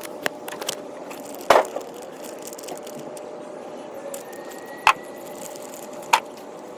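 Small metal clinks and clicks of screws and mounting-bracket parts being handled, with a few sharper clacks spread through, over steady background noise.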